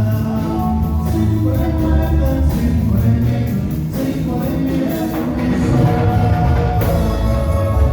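Band music with singing over a steady beat and strong bass.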